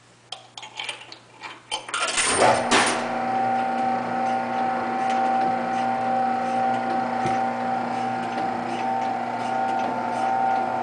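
Motor-driven cutaway motorcycle engine display model starting up: a run of clicks and knocks, a loud burst of noise about two seconds in, then its drive mechanism running with a steady hum and whir.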